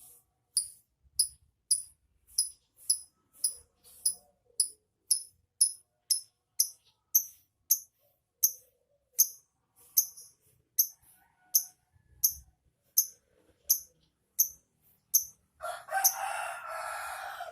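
Lovebird giving short, high chirps, about two a second, then breaking into a harsher, scratchy chatter near the end.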